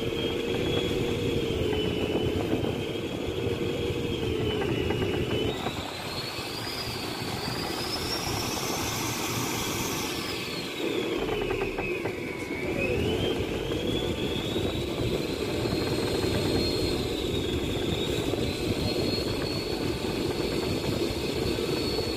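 Fishing boat's engine running under way, with water rushing past the hull. Its whine climbs in pitch through the middle, then drops sharply and settles back to a steady tone.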